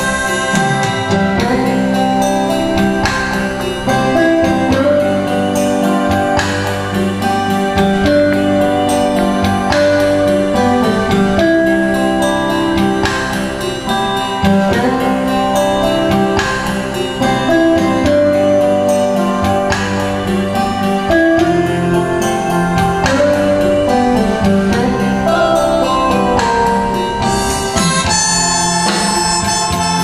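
Harmonica played through a microphone and PA over a backing track with keyboard, guitar and a steady beat. The harmonica is heard at the start, drops out through the middle while the accompaniment carries on, and comes back near the end.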